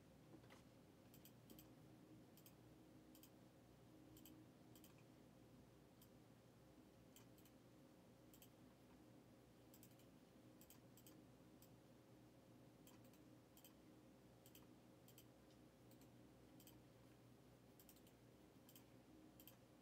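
Near silence: a low steady room hum with faint short clicks scattered throughout, many of them in quick pairs.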